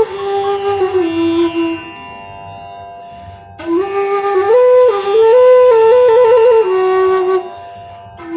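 Bansuri bamboo flute playing a slow melody of held, stepped notes over a steady tampura drone from an app. The flute plays two phrases; in the gap between them, about two seconds in, and again near the end, only the quieter drone is heard.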